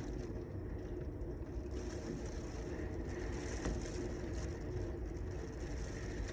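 Steady rain hiss over a continuous low rumble of city traffic.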